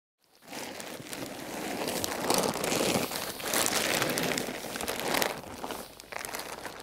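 Fabric of a deflated inflatable air-pole tent rustling and crinkling as it is rolled up tightly by hand. The sound starts about half a second in, is loudest in the middle and thins out near the end.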